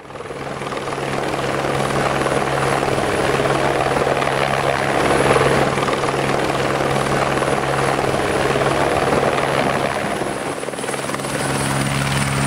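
Light single-engine helicopter coming in low and setting down, its rotors running with a steady low hum and a thin high whine over dense rotor noise.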